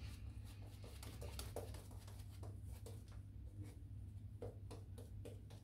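Faint, soft scratching strokes of wet shaving at the face, irregular, roughly two a second, over a low steady hum.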